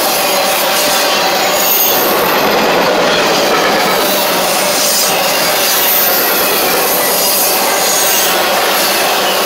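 Norfolk Southern intermodal train's container cars rolling past close by: a steady, loud rush of steel wheels on rail, with a thin, high wheel squeal coming and going a few times.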